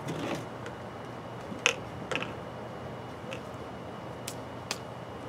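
PVC pipe pieces and fittings being handled and set down on a wooden workbench: a few short sharp clicks and knocks, the loudest about a second and a half in and two more just after, then fainter ones near the end.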